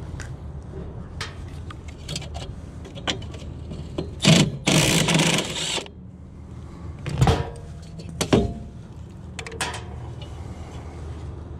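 Metal handling noise as a furnace inducer motor and its sheet-metal blower housing are unbolted and pulled out of a package unit: scattered clicks and knocks, a louder scraping rush lasting about a second midway, and two sharp knocks after it.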